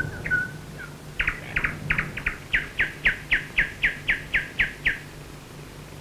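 A bird singing a quick run of short, falling chirps, about four a second, that starts about a second in and stops about a second before the end.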